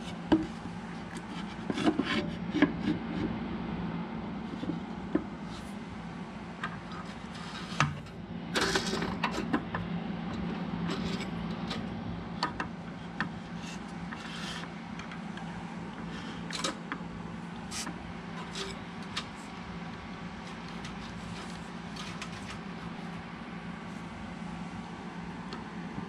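Scattered knocks, taps and rubbing as a wooden board and an aluminium DRO linear scale are handled and fitted against a mill drill's table casting, loudest in the first ten seconds, over a steady low hum.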